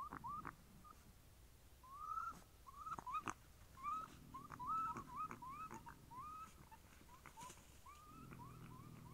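A distant animal giving a long run of short, yelping calls that slide upward in pitch, several a second and most rapid in the middle. They are much like a dog barking. A few sharp snaps are heard among them.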